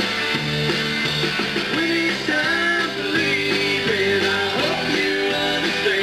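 Live country-rock band playing: electric and acoustic guitars over a drum kit, steady and full throughout.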